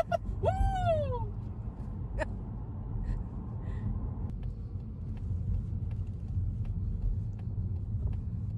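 Steady low rumble of a Mazda car driving, heard inside the cabin. About half a second in, a short wordless excited cry rises and then falls in pitch.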